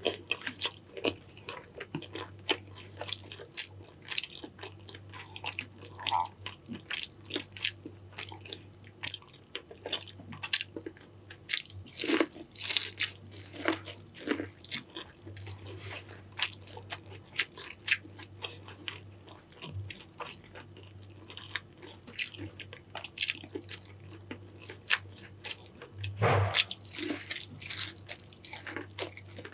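Close-miked eating of a seafood boil: a person biting and chewing, with frequent sharp, irregular crunches and cracks.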